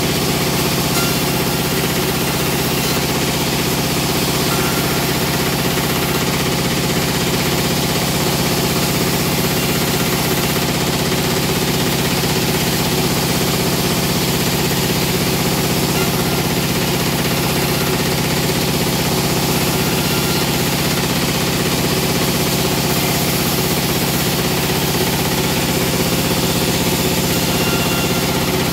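Sawmill log saw and its drive running steadily, cutting a slab off a log as it is pushed through, with a constant mechanical hum and no pauses.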